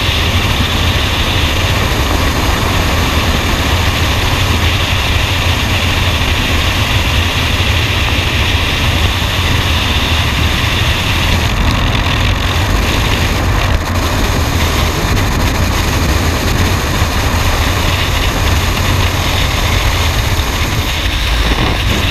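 Freefall wind noise: air rushing over a skydiver's camera microphone, a loud steady rumble with hiss.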